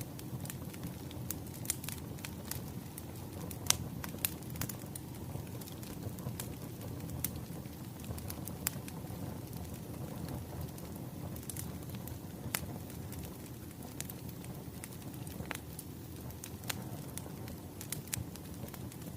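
Wood fire crackling: a steady low rush with irregular sharp pops and snaps scattered throughout.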